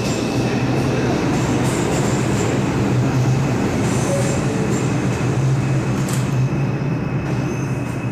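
Steady low hum and rumble of an R142 subway train standing at a station platform.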